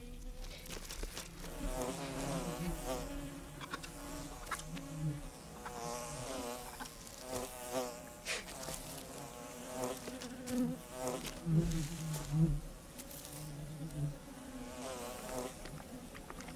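Honey bees buzzing around a broken honeycomb, several at once, the buzz wavering up and down in pitch, with scattered sharp clicks.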